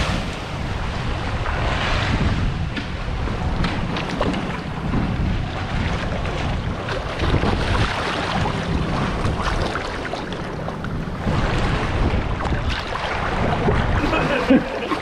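Sea water sloshing and splashing close to the microphone as swimmers paddle through it, with a low rumble of wind and handling noise on the microphone.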